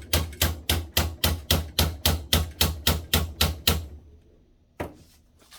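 Steady run of sharp mechanical clicks, about four or five a second, that stops abruptly about four seconds in, followed by a single knock near the end.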